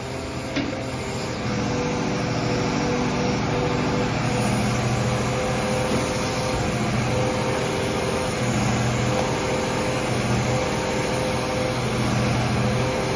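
Truck engine and hydraulic pump powering a truck-mounted Palfinger loader crane as its boom is raised: a steady mechanical hum with a few held tones, getting louder about a second and a half in. A single sharp click near the start.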